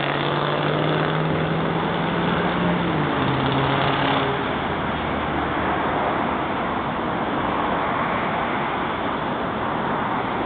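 Road traffic noise with a motor vehicle engine running close by; its steady hum rises slightly, stops about three seconds in, and a lower hum follows for about another second.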